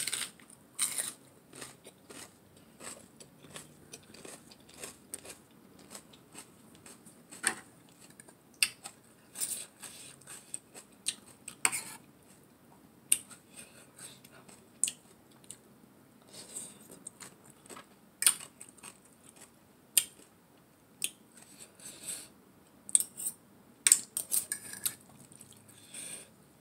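Close-up eating sounds: chewing of raw shredded-carrot salad and pepper, with metal forks clicking and scraping on a plate in scattered sharp clicks.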